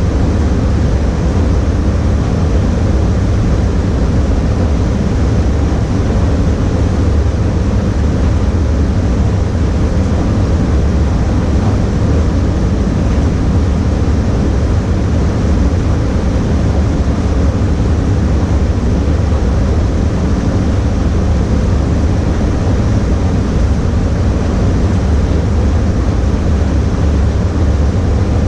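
Steady, loud rush of moving air in an automotive spray-paint booth, heaviest in the low end, with no breaks or separate events.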